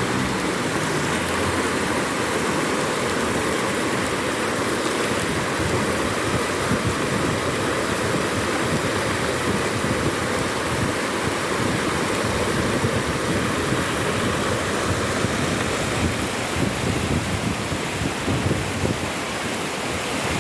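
Steady rush of floodwater running along a flooded street like a river.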